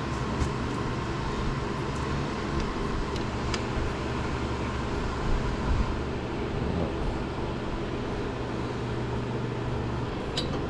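A steady droning machine hum, with a few faint metallic clicks as a 5/8 wrench turns the bolt of a transmission seal-puller tool.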